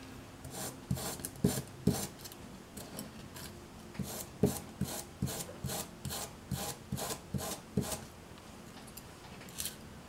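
Repeated scraping strokes of a hand tool rubbed along a small craft strip, at about two to three strokes a second and easing off briefly near the end. The strip is being distressed into a rough, worn timber texture.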